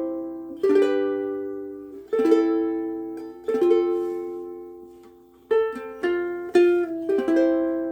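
Mahogany soprano ukulele (Oli X1) strummed in a slow run of chords, each struck sharply and left to ring out and fade, with a last chord ringing on near the end.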